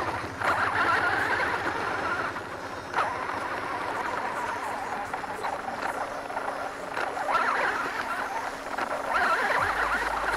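Radio-controlled off-road car driving over gravel and grass, heard through its onboard camera: a rough, crackling run of motor, gears and tyres, with a few knocks from bumps.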